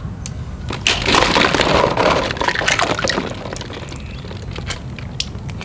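Plastic balls clattering and rustling in a tub as hands rummage among them for about two seconds, followed by a few light plastic clicks.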